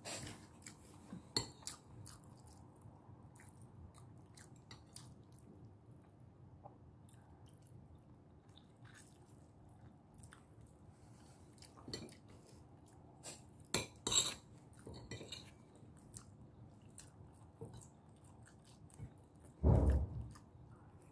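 Close-up eating sounds: soft, scattered clicks of chewing and of fingers picking food off a plate, with a few sharper clicks and one dull thump near the end.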